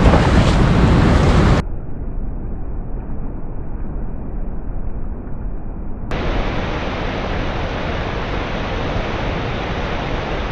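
Steady rushing noise of a river's flowing water, with wind on the microphone. It turns abruptly duller about a second and a half in and brighter again about six seconds in.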